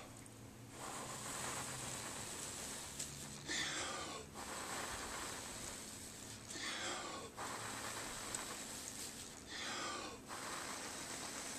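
A person blowing hard at the plastic wind vanes of a mini Strandbeest walking kit to drive it along: a steady rush of breath, broken about every three seconds by a short, louder breath.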